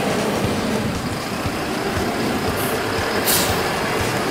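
Diesel engine of a large container forklift running as it lifts and carries away a freight container, with a flatbed truck's engine alongside. A short hiss of air about three seconds in.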